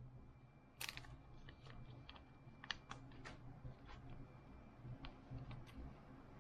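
Faint, scattered clicks and ticks of Bowman baseball cards being handled and leafed through, over a low steady hum.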